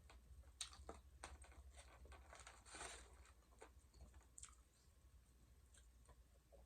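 Faint close-up chewing: a scattering of soft mouth clicks and a few small crunches, the longest crunch about halfway through, over a low steady hum.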